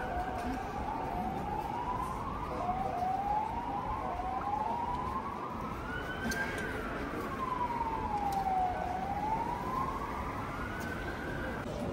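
An emergency vehicle's siren wailing, its pitch sweeping up and down: a few quick rises, then a long slow rise and fall, and a last rise that cuts off just before the end.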